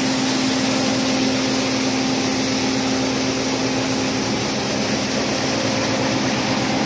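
Old communist-era maize grinding mill running steadily while grinding: a loud, even machine hum with one strong steady tone over a constant rushing noise.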